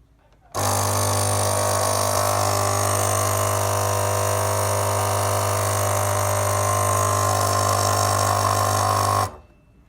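Espresso machine's water pump buzzing steadily for about nine seconds, switching on half a second in and cutting off suddenly near the end, while no water comes out: the sign of a fault in the pump or a blockage in it.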